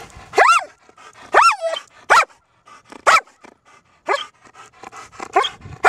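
German Shepherd barking, about seven short barks that rise and fall in pitch, spaced unevenly. The barks come while the dog waits, eager, for its ball to be thrown.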